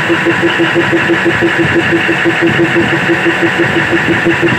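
Cummins diesel engine running steadily at constant speed: a loud, even drone with a pulsing note that beats about seven times a second.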